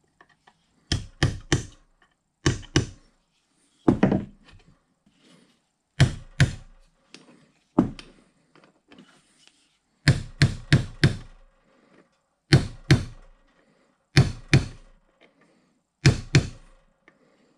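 Brass hammer striking a pin punch to drive a roll pin through the clutch detent cam and shaft of a Bridgeport 6F power feed. The taps come in quick groups of two to five, a second or so apart, nine groups in all.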